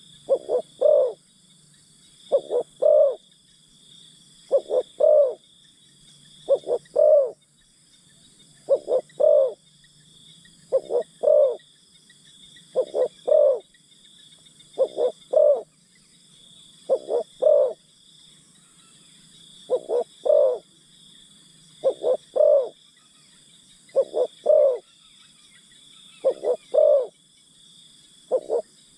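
Spotted dove cooing its repeated phrase, a couple of quick coos and a longer final note about every two seconds. Insects drone steadily behind it.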